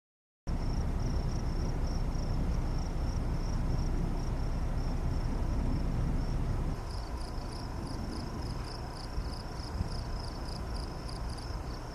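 Insects chirping in a steady, pulsing high trill over a low rumble. About seven seconds in, a second chirping joins at about three to four pulses a second while the rumble drops a little.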